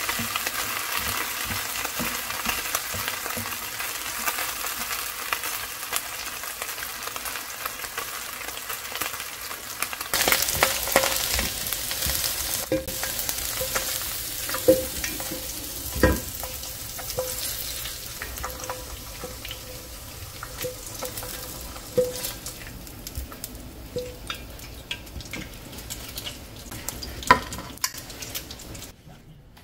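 Pork neck pieces sizzling in a nonstick frying pan as they are stirred with tongs. From about halfway the sizzle thins, and sharp clicks and knocks come every second or two as the tongs lift the meat out of the pan onto a plate.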